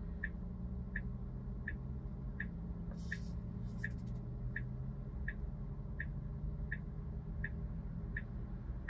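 Tesla Model 3 turn signal ticking steadily, a little under two ticks a second, over a low steady cabin hum while the car waits to turn. A brief soft hiss comes about three seconds in.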